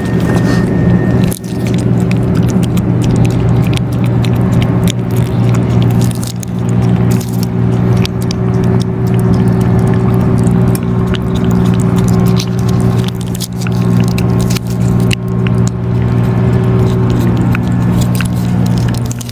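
Cats eating dry cat food, a dense run of small crunching clicks, over a steady low hum of held tones.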